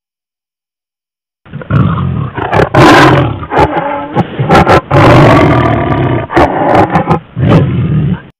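Tiger roaring and growling in a string of loud roars. It comes in suddenly about a second and a half in and cuts off abruptly near the end, as a dubbed-in sound effect.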